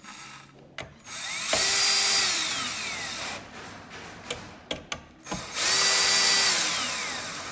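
Cordless drill driving bolts into a wooden chair frame in two runs: each time the motor whine rises as it spins up, holds, and falls away as it slows, with a few clicks between the runs. The bolts are only being snugged, not fully tightened.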